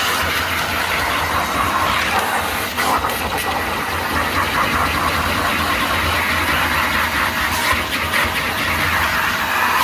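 A 1991 Numatic Henry vacuum cleaner running steadily while vacuuming stairs, with a few sharp clicks near the end.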